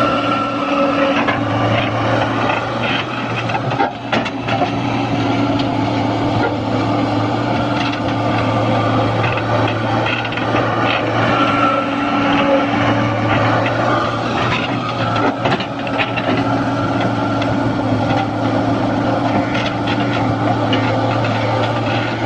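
Fiat-Hitachi excavator's six-cylinder diesel engine running steadily under working load, with a higher tone that comes and goes as the hydraulics work, and scattered knocks and scraping from the bucket.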